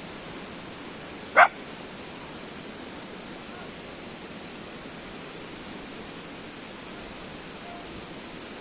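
An animal's single short, high yip about a second and a half in, over a steady hiss.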